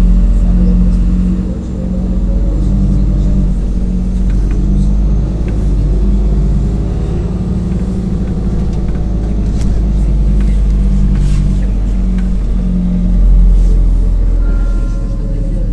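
Interior of a MAZ-203 city bus under way: the engine and drivetrain running with a loud, steady low rumble and road noise, the engine note rising and falling slightly as it drives.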